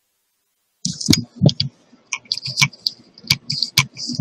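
Emergency preparedness kit bag being handled up close: irregular clicks, rustles and knocks that begin about a second in.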